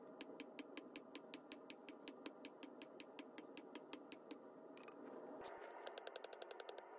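Near silence with faint, evenly spaced ticking, about six ticks a second, quickening to about nine a second near the end.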